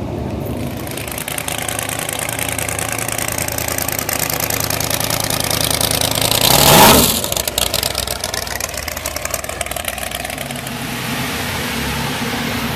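A car engine running and driving past close by. It grows louder to a peak about seven seconds in, with its pitch dropping as it passes, then fades back to a steady hum.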